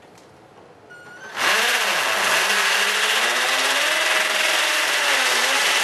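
Cordless drill boring into a masonry wall, starting about a second and a half in and then running steadily, its motor pitch wavering slightly under load.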